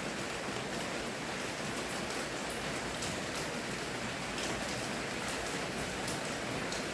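Steady rainfall, an even hiss with scattered individual drops pattering.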